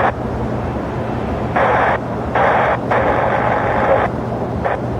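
Air traffic control radio channel keyed open without clear speech: a burst of static hiss about one and a half seconds in, a short break, then more hiss for about two seconds. A steady low hum runs underneath.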